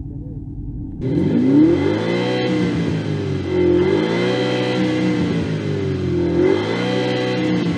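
THOR electronic exhaust loudspeaker on a BMW 320i playing its synthetic Porsche Panamera engine sound as the engine is revved. After a muffled first second the note climbs sharply, then falls and rises again twice.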